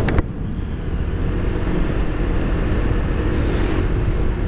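Motor scooter riding at road speed, heard from a helmet-mounted microphone: steady wind rush and road rumble over a faint, even engine drone. A single sharp knock right at the start, and a brief swell of hiss about three and a half seconds in.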